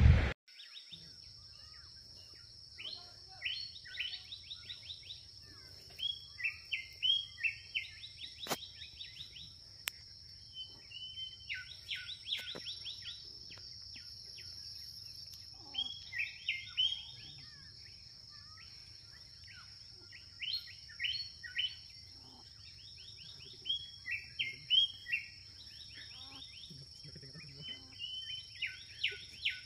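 Birds calling in bursts of quick, rapidly repeated chirps every few seconds, over a steady high insect drone, after a brief rush of wind noise at the very start.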